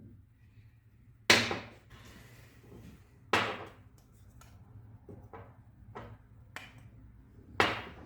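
Sharp metal knocks while the seized bearing is worked off a router's armature: three loud strikes with a brief ring, with a few lighter taps between the second and third.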